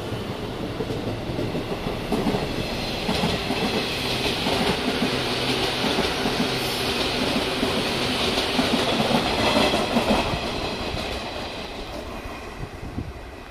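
JR commuter electric trains, 201 series and 207 series, running past on the line. The sound grows louder to a peak about nine or ten seconds in, then fades.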